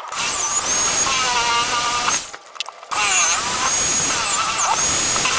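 Power tool such as a drill running with a whine that shifts in pitch, stopping for about half a second a little after two seconds in and then starting again.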